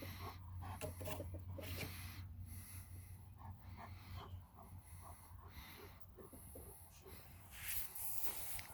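A dog breathing and snorting close by in short, irregular puffs, over a low hum that fades out about halfway through.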